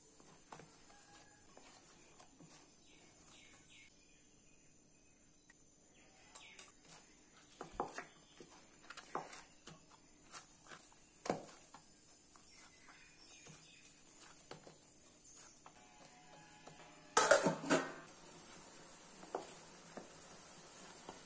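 Chapathi dough being kneaded by hand in a stainless steel bowl: scattered taps and knocks of hand and dough against the steel. About 17 seconds in comes a louder short clatter of the bowl, all over a faint steady hiss.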